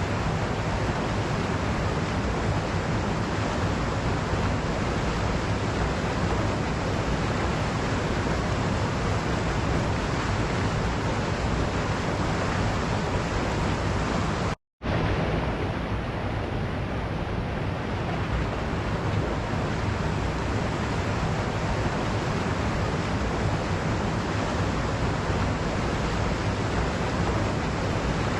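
Waterfall, a steady rush of falling water. It cuts out for a split second about halfway through, then resumes.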